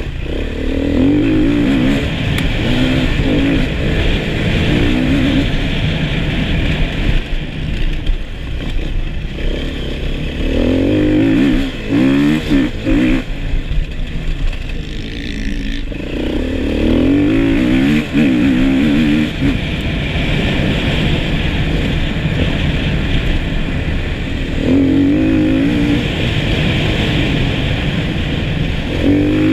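Enduro motorcycle engine heard from on the bike, revving up and easing off in repeated surges as the rider accelerates, shifts and slows through the turns of a grass track.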